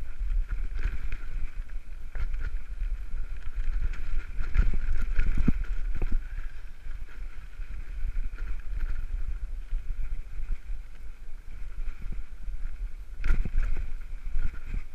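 Rumble and rattle of a steel-frame touring bike rolling down a rough gravel trail, heard from the handlebars, with wind buffeting the microphone. Sharper knocks come as the bike hits bumps and rocks, loudest around five seconds in and once more near the end.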